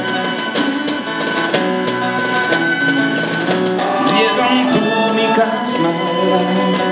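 Instrumental break of a live band: acoustic guitar and drums keeping a steady beat of about two strokes a second, with a violin taking up a melody with vibrato about four seconds in.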